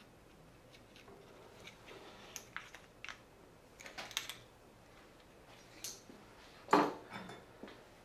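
Scattered light clicks and scrapes of hands working on a chainsaw chain held in a vice while the starter tooth is marked, with one louder knock about seven seconds in.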